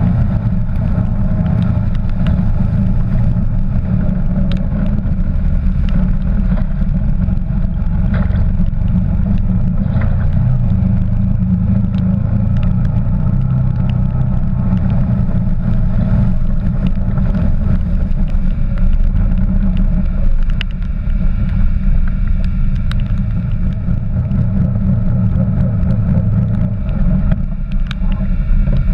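Quad bike (ATV) engine running steadily as the bike rides along a wet, rocky track, heard as a heavy low rumble, with scattered sharp ticks throughout.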